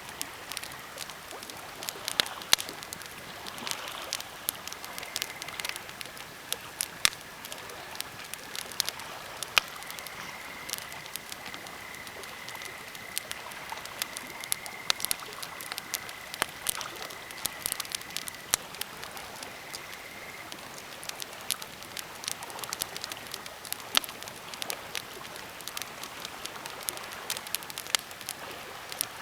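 Birch and pine campfire crackling, with irregular sharp pops and snaps over a steady hiss. A faint thin whistle comes and goes, held longest in the middle.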